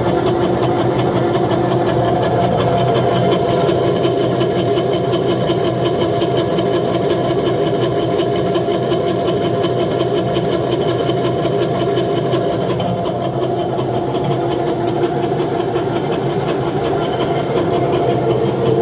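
Industrial gear reducer running steadily: a constant mechanical hum and whine with a harsh, hissing noise spread over the higher range, which eases somewhat about two-thirds of the way through.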